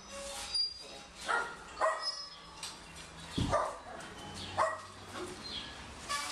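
Dogs barking in a shelter kennel, a short bark every second or so.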